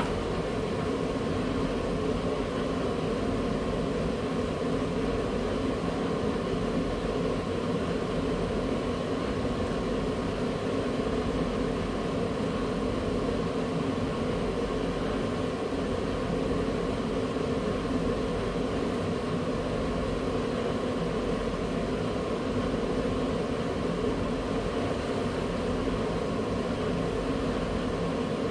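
A steady mechanical hum that stays even throughout.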